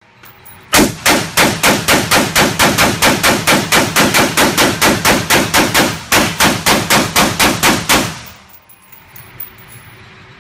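AR-15 rifle fired in rapid succession, about four shots a second, emptying the magazine, with a short break about six seconds in. The shots ring in an indoor range lane and stop about two seconds before the end.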